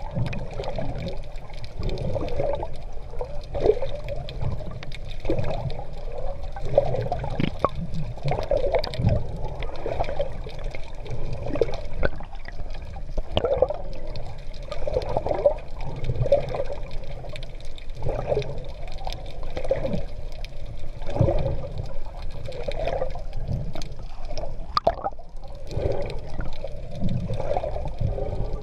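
Sea water sloshing and gurgling around a swimmer's GoPro, in uneven surges about once a second as the swimmer strokes along.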